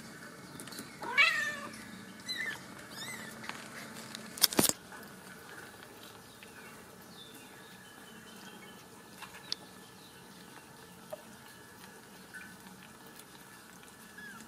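Very young Ragdoll kittens mewing: one loud mew that rises then falls about a second in, two smaller mews soon after, and a few faint ones later. A short sharp thump about four and a half seconds in is the loudest sound.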